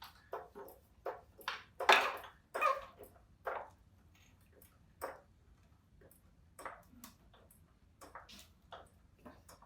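Irregular metal clinks and knocks, some ringing briefly, from a jack and hand tools being worked under an ATV as it is jacked up; the loudest come about two seconds in, and they thin out in the second half.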